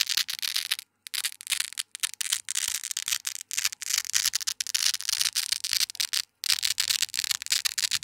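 Velcro strip being slowly peeled off a nano-hook Velcro base: a dense, crisp crackle of tiny hooks letting go, with brief pauses about a second in and just after six seconds.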